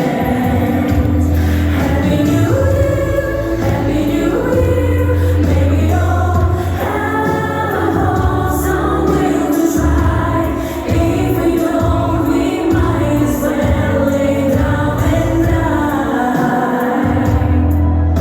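Music with a choir singing over sustained deep bass notes.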